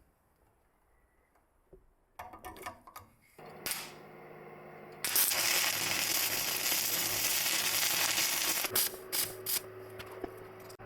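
Workshop tool noise: a few clicks and handling sounds, then a low steady hum starts, and a loud steady hiss runs for about three and a half seconds before stopping with a few sharp knocks.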